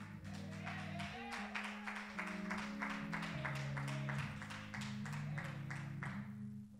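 Soft keyboard music: sustained chords that change every second or so, over a light tick about four times a second. It fades out near the end.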